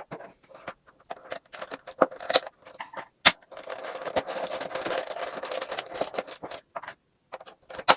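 Small plastic toy furniture pieces and their packaging being handled: a run of light clicks and taps, with about three seconds of plastic rustling in the middle.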